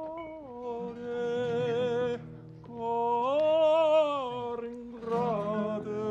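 An older man sings a slow Italian song in long, held notes with a wide vibrato, in phrases broken by short breaths, climbing to the loudest, highest note about four seconds in. An acoustic guitar accompanies him.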